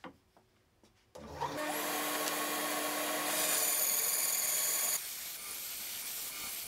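Titan bench bandsaw motor starting up about a second in and then running while its blade rips a 3-inch-thick oak board. The sound drops suddenly to a quieter steady level about five seconds in.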